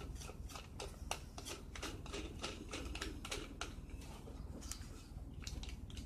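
Faint, irregular run of small sharp clicks and smacks, about three a second, from a mouth eating candy close to the microphone.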